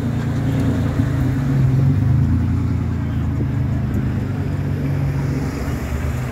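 A car engine running close by, a steady, deep sound that swells slightly about two seconds in.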